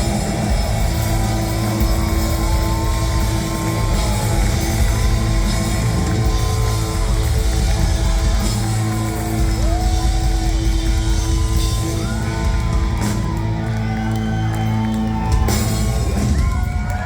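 Loud rock music with singing and shouted vocals.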